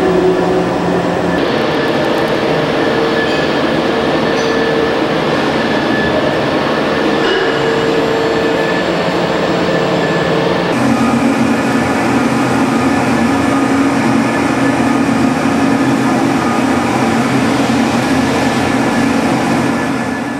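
Dynamometer test stand driving a flexible shaft coupling at speed under 3.5 mm offset and 1 degree angular misalignment: a loud, steady machine drone with several pitched tones. About eleven seconds in the tone changes and a stronger low hum comes in.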